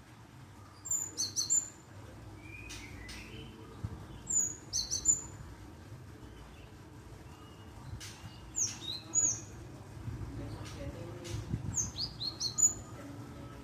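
Glatik calls: four quick clusters of short, high chirps, a few seconds apart, over a faint low background rumble.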